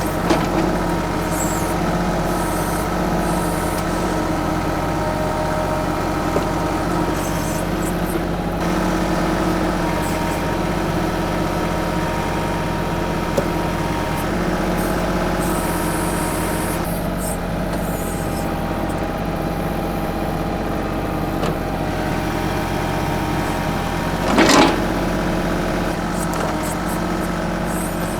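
25 hp TYM 2515H compact tractor's diesel engine running steadily while it powers the BH150 backhoe digging around a stump. A brief loud noise comes near the end.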